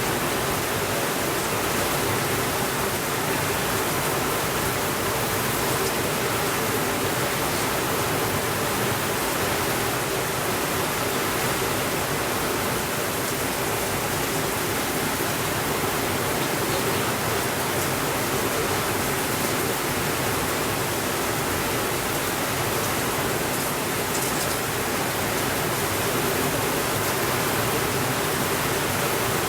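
Steady rainfall, an even hiss that holds the same level throughout, with no thunder.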